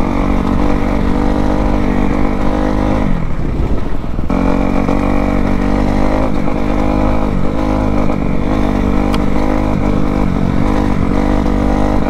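2020 Kawasaki KX250F's fuel-injected four-stroke single-cylinder engine running under throttle as the bike is ridden. About three seconds in the engine note sags as the throttle is eased off, then comes back sharply about a second later.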